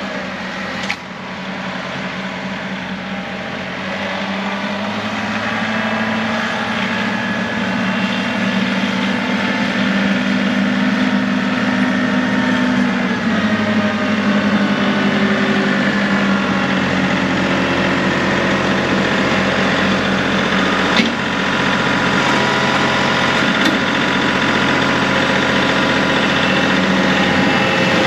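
John Deere 2038R compact tractor's three-cylinder diesel engine running steadily, growing gradually louder, with a couple of brief sharp clicks.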